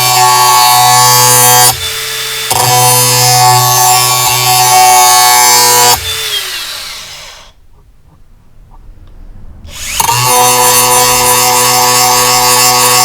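Angle grinder running and grinding a steel lawnmower blade edge, a steady motor whine under a grinding hiss. It dips briefly about two seconds in, winds down with a falling whine about six seconds in to a few seconds of quiet, then starts up again.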